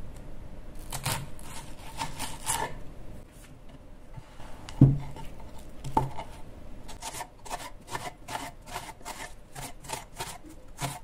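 Small kitchen knife cutting a red onion on a wooden cutting board: a few scraping strokes, two sharper knocks of the blade against the board near the middle, then a run of quick, even cuts at about three a second.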